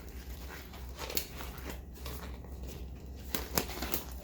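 Light clicks and rustling of gloves being handled and pulled on, with a few sharper clicks in the second half, over a steady low hum.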